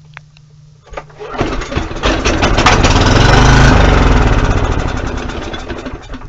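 Briggs & Stratton portable generator engine pull-started: it catches about a second in, runs loudly for a few seconds on carburetor cleaner sprayed into the intake, then winds down and dies. It starts but won't stay running, which the owner takes as a sign the carburetor needs to come off and be taken apart for cleaning.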